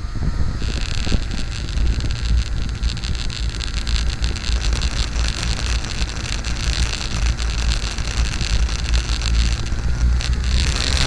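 Radio-controlled model aircraft motor running with a steady whine, over heavy wind rumble on the microphone. A broader rushing noise swells near the end.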